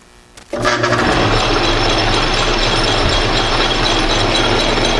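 Atlas metal lathe switched on about half a second in, then running steadily with its chuck spinning.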